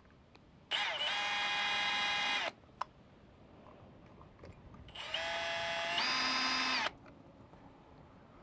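Power drill with a thin bit running in two bursts of about two seconds each, drilling holes through the mounting bracket into the wall. The motor whine rises as it spins up at the start of each burst, and in the second it steps up in speed partway through.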